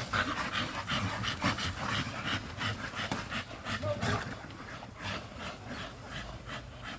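American bully dog panting in quick, regular breaths, about three a second.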